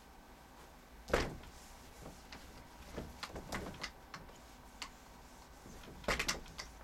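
Cloth wiping marker off a whiteboard, with rubbing and knocks against the board: a sharp knock about a second in, a few more in the middle and a quick cluster near the end.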